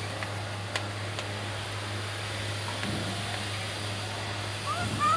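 Steady low hum under a light background hiss, with two faint clicks of a metal spoon against a plate about a second in. Near the end come a few short, rising squeaky calls, the loudest sounds here.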